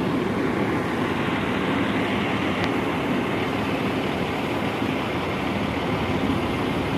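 Steady rumble of a heavy vehicle's engine running, continuous and unchanging.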